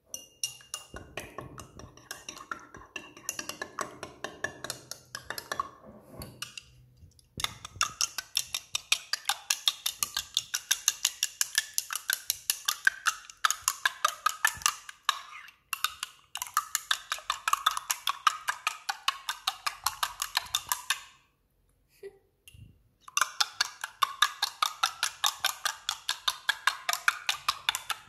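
A slim utensil whisking milk and egg in a ceramic mug, clicking rapidly against the mug's sides at about four strikes a second. It is softer for the first several seconds, then louder, with a few short pauses.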